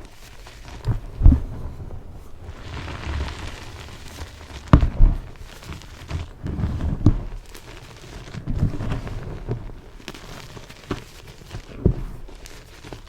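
Yellow-dyed BSN gym chalk being crushed: irregular crunching and crumbling, with a few sharper, louder crunches scattered through.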